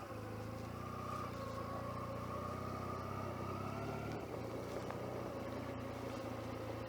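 Motorcycle engine running on the move, heard through a lavalier mic inside a jacket pocket, with little wind noise. The engine note rises gently, then drops about four seconds in.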